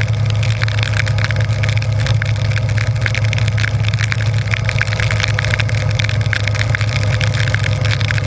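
Harley-Davidson Breakout's V-twin engine running at a steady speed on the road, with a constant hiss of rain and wind and many small sharp ticks of raindrops striking the bike-mounted camera.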